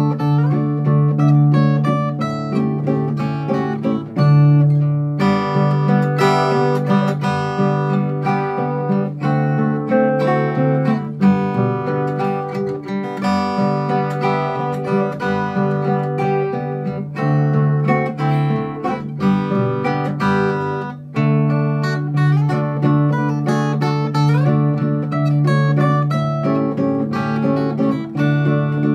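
Duet of a nylon-string classical guitar and a steel-string acoustic guitar playing a waltz: fingerpicked melody over steady low bass notes, with a brighter, busier passage about five seconds in.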